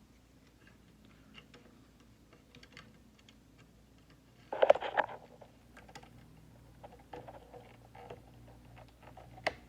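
Small clicks and handling noises from hands working on a wiring harness and its connectors, with a louder rustle a little before halfway and a sharp click near the end.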